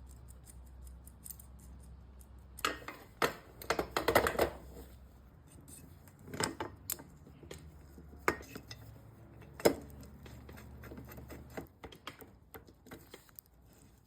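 Metal tools and bicycle crank bearing parts clinking and knocking against each other in irregular handling. There is a busy cluster of clinks about four seconds in and a sharp single knock near ten seconds. A low steady hum underneath stops a couple of seconds before the end.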